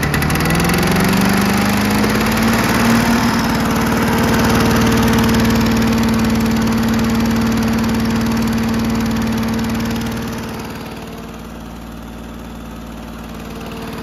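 Victa Mustang lawn mower's two-stroke engine running just after a pull start. Its pitch rises over the first few seconds, then holds steady at about 3,400 rpm, governed by a stiffer governor spring that has cured its under-revving. It gets somewhat quieter about ten seconds in.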